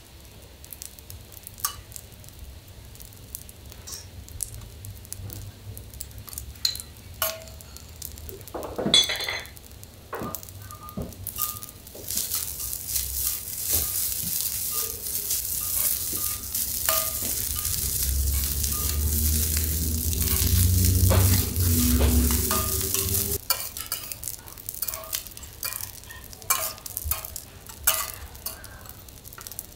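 Garlic rice frying on a steel teppanyaki griddle: metal spatulas tap and scrape the plate throughout. About twelve seconds in, a loud sizzle starts, swells, and cuts off suddenly about eleven seconds later.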